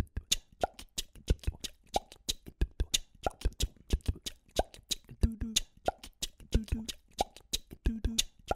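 A solo performer's live percussive rhythm, beatbox-style mouth sounds with body slaps and foot steps on a wooden stage, keeping a steady beat. A hollow, falling-pitch hit lands about every two-thirds of a second, with quicker sharp clicks between, and short low hummed notes come in the second half.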